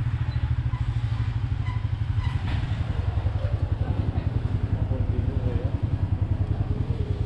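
Royal Enfield Meteor 350's single-cylinder engine running steadily as the motorcycle is ridden, with an even, rapid exhaust pulse.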